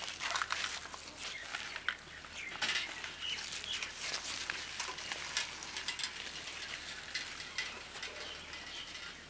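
Small birds chirping in scattered short calls over faint open-air background sound, with light clicks throughout.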